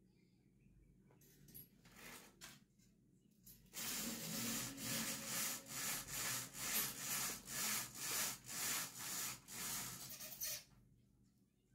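Rhythmic rubbing strokes, about two a second, beginning about four seconds in and stopping abruptly some six seconds later. A few faint handling knocks come before them.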